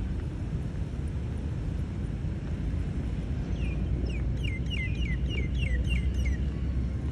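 Steady low rumble of city traffic, with a small bird calling a quick run of short, falling chirps, about three a second, from about halfway for nearly three seconds.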